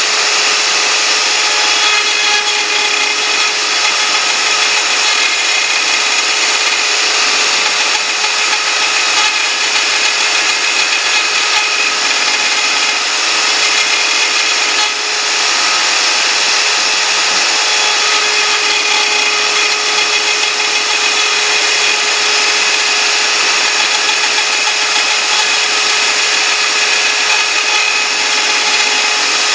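CNC router spindle running steadily while its bit mills lettering: a continuous high whine over the noise of cutting.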